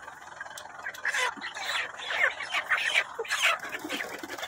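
A crowd of chickens squawking and cackling in distress, many short overlapping calls that grow louder from about a second in, as live birds are grabbed and pulled out of the crates of a crashed poultry truck.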